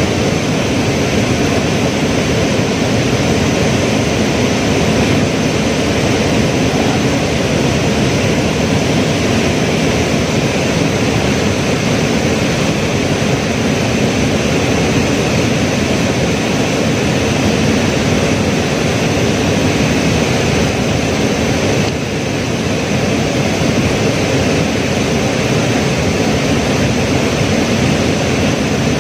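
Loud, steady rush of a flood-swollen river's fast-flowing water.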